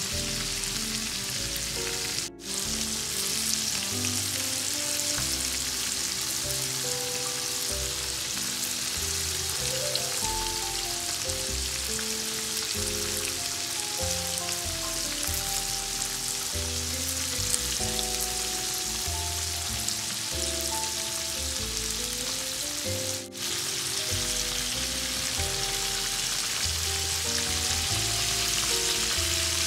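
Batter-coated oysters frying in hot oil: a steady, dense sizzle, with soft background music underneath. The sound drops out for an instant twice, about two seconds in and again past twenty seconds.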